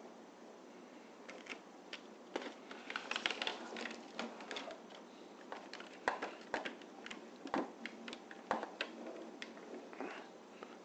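Foil tape being cut and worked onto a plastic refrigerator bin: irregular small clicks, taps and crackles, coming in clusters.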